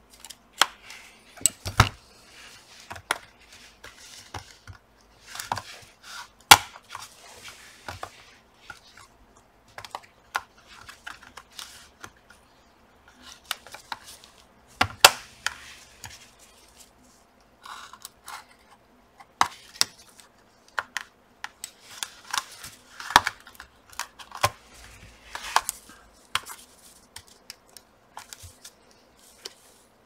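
A laptop's bottom cover being pried off: a thin opening tool worked around its edge makes irregular sharp clicks and cracks as the cover's clips let go, with short scraping sounds in between.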